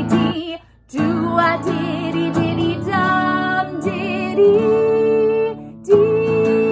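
A woman singing long held notes with vibrato over a strummed acoustic guitar. The music breaks off briefly twice, about half a second in and again near the end.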